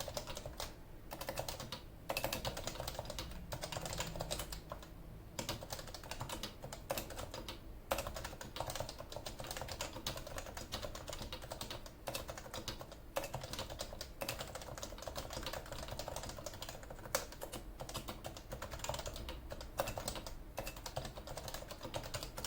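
Typing on a Leopold FC980C keyboard with 45 g non-silent Topre electro-capacitive switches: a continuous run of rapid keystrokes with a few short pauses, giving the 'thock' sound that is typical of Topre.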